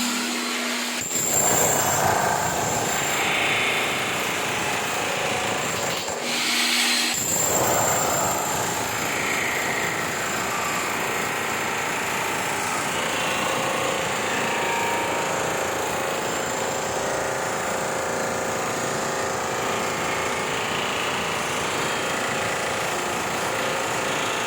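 Concrete pump machine running, a loud steady mechanical clatter that briefly drops its low rumble about 6 seconds in before carrying on.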